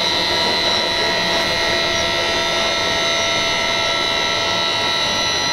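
A machine running steadily: a high, many-toned whine over a hiss, with no change in speed.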